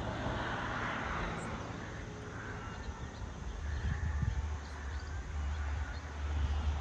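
Rural outdoor ambience: a low rumble that grows heavier about halfway through, under a soft hiss and a few faint high chirps.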